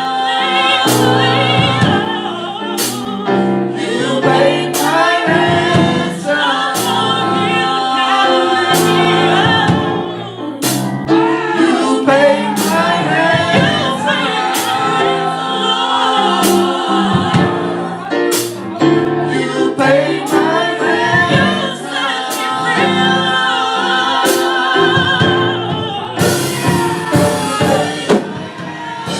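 Gospel choir singing in harmony over music with a steady percussive beat.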